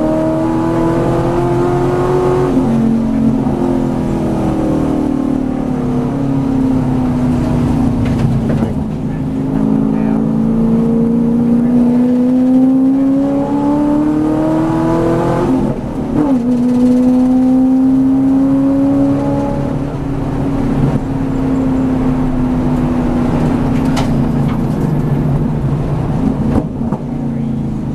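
V8 Supercar's racing V8 engine heard from inside the cabin at speed on track, its pitch climbing under acceleration and falling as the car slows. The pitch drops sharply at gear changes, about two seconds in and again about halfway through.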